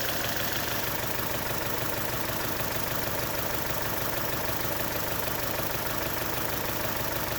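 Chevrolet Cruze engine idling steadily; the engine has a misfire on cylinder 4.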